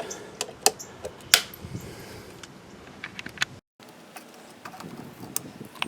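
Wire cutters working a cotter pin out of a motorcycle's rear axle nut: a scatter of small metallic clicks and taps.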